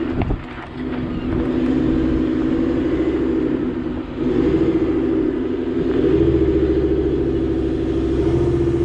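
Ford F-150's 5.0 V8 with Corsa exhaust running at low speed under load, crawling up a small trail hill. The engine note eases off briefly about four seconds in, then pulls harder again.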